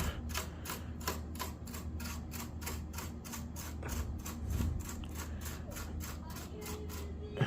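Quick, even scrubbing strokes, about four a second, as the ridged plastic of a PS5 is wiped along its ridges. A steady low hum runs underneath.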